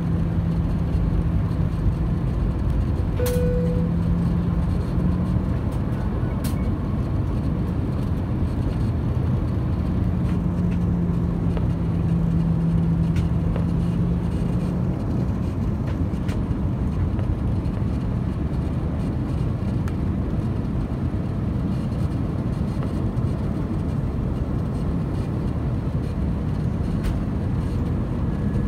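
Steady roar of cabin noise inside an Airbus A319 airliner descending on approach, from its engines and the airflow over the fuselage. A low hum comes and goes, and there are a few faint clicks.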